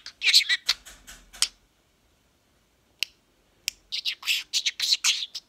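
Budgerigar chattering in quick runs of short, high chirps and clicks, falling silent for about two seconds midway, with a single click, then starting up again.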